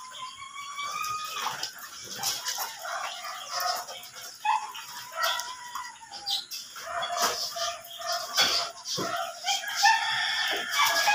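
Chickens clucking and a rooster crowing, with a long held crow near the end, over splashing water as a skinned rabbit carcass is washed by hand in a steel basin.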